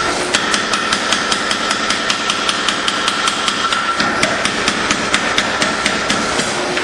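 Rapid, even hammer blows forging steel on an anvil, about four strikes a second, over a steady whine.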